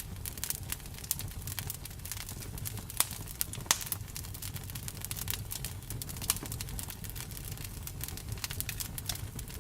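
Campfire crackling, with irregular snapping pops over a low steady rumble of flame. Two pops about three seconds in stand out as the loudest.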